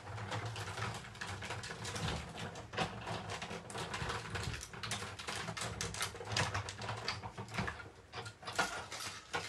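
Sizzix Big Shot hand-cranked die-cutting machine being cranked to cut a white paper piece from a die, with a dense run of clicks and knocks.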